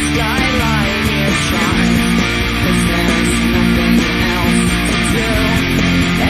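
Electric guitar distorted by a TC Electronic MojoMojo overdrive pedal, playing a rock riff: sliding notes in the first second and a half, then held, sustained notes.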